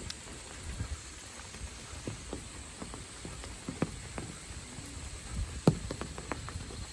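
Rain falling: a steady hiss with scattered close drops ticking and knocking at irregular intervals, one louder knock about five and a half seconds in. A faint steady high insect drone runs underneath.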